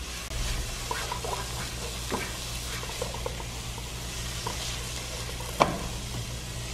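Chopped onion sautéing in olive oil in a pan, sizzling steadily while it is stirred, with light scrapes of the spoon and one sharp knock about five and a half seconds in. A low steady hum runs underneath.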